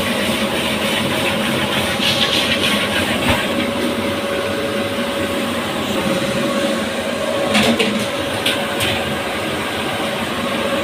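Steady roar of gas burners on a commercial kitchen range, with a constant hum under it. A few sharp metal clinks from a ladle and steel pan come about three-quarters of the way through.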